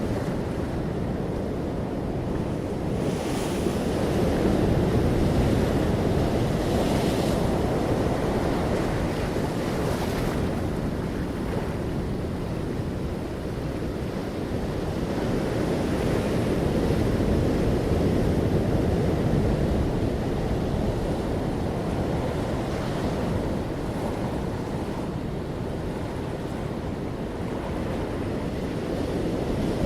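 Sea waves breaking and washing up a shore, a steady surf rumble that swells and ebbs slowly, with a few brief hissing washes of foam in the first ten seconds.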